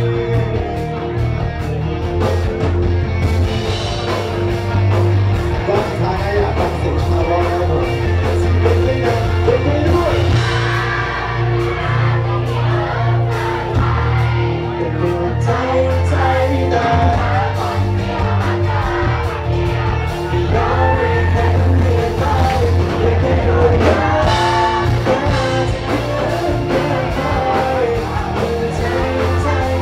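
Live band music with a singer: steady heavy bass, a regular drum beat and a sung melody line.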